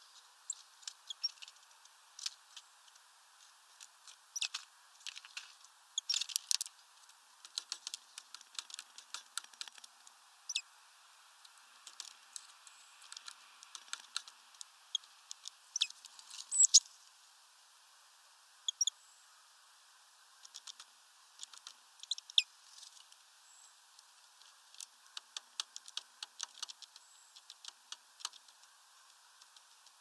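Irregular sharp clicks and ticks, densest about six seconds in, with a few brief high, thin peeps.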